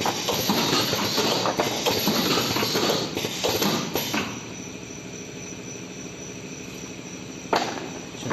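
Automatic cartoning machine running, with a dense clatter of clicks and knocks from its mechanism. After about four seconds it drops to a quieter steady running hum, with one sharp clack near the end.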